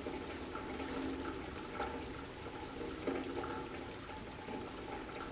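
Heavy rain falling on a street and rainwater streaming into a storm drain: a steady rushing of water.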